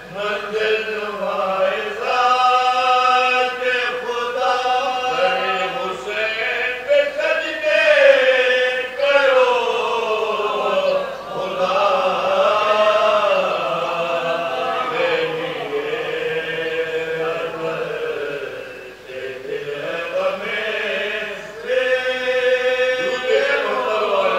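Marsiya recitation: several men's voices chanting an unaccompanied elegy together, holding long notes that slide up and down in pitch.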